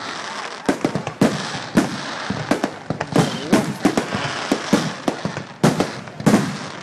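Aerial fireworks shells bursting in quick, irregular succession: more than a dozen sharp bangs, with crackling in between.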